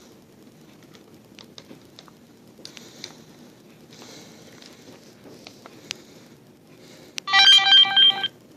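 Polaroid digital camcorder's start-up welcome sound: a short run of electronic beeping notes lasting about a second, near the end. Before it, only a few faint clicks over low hiss.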